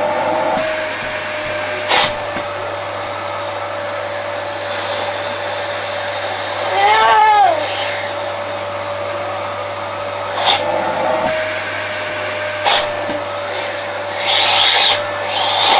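Vacuum cleaner running steadily with a constant whine, with a few sharp knocks, a brief rising-and-falling tone about seven seconds in, and louder surges of rushing air near the end.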